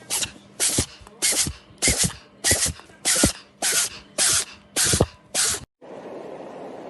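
A regular series of about a dozen short hissing bursts, roughly two a second, that cut off suddenly near the end; faint music follows.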